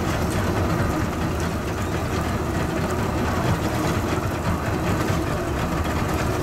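Boat's outboard motor idling, a steady low rumble with no let-up.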